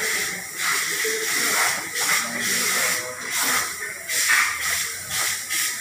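Steady hissing noise, with faint voices in the background.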